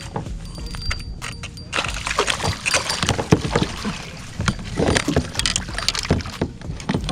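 Water splashing with knocks and rattles against a fishing kayak as a hooked fish is brought aboard; the clatter grows busier about two seconds in.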